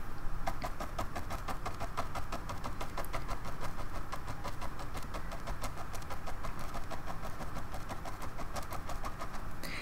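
Paintbrush dabbing thick acrylic paint onto a stretched canvas: a rapid, steady run of soft taps, several a second.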